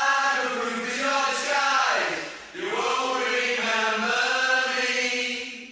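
Sung voices in a song, holding long notes in phrases about two and a half seconds long, each sliding down and back up in pitch; the singing fades out near the end.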